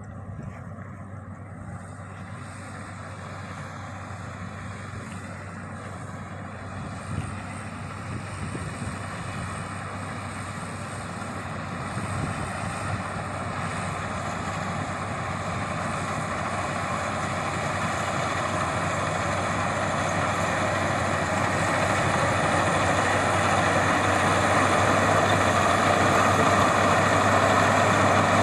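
Maxxi Bimo 102 combine harvester running with a steady engine hum and mechanical noise, growing steadily louder.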